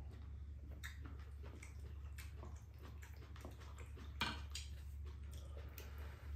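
Quiet eating sounds: a spoon and chopsticks tapping and scraping ceramic bowls, with chewing, and one sharper click about four seconds in, over a low steady hum.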